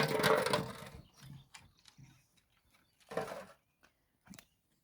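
A dog making two brief vocal sounds, one right at the start and a shorter one about three seconds in, with scattered light clicks and taps in between.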